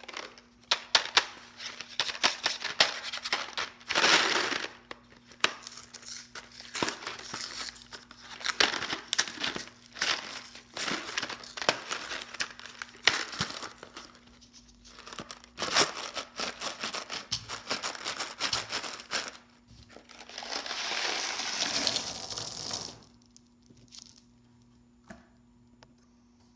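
Mike and Ike candy packaging being handled and opened: crinkling with many sharp crackles in irregular spells, and a longer steady rush of crinkling about 20 seconds in.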